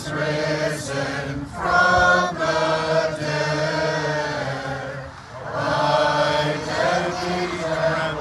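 A group of voices chanting a Byzantine liturgical hymn together, in long held phrases with a short break about five seconds in.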